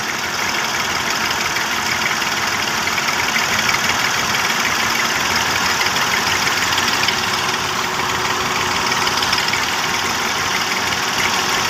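Diesel farm tractor engine running hard and steady under heavy load as it strains to pull an overloaded sugarcane trolley stuck in soft sand.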